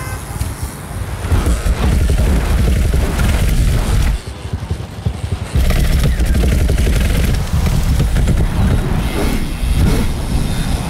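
Downhill mountain bike clattering down steep stairs and rough street at speed: tyres striking the steps and the chain and frame rattling in a dense run of knocks. The lowest part of the sound eases briefly about four seconds in.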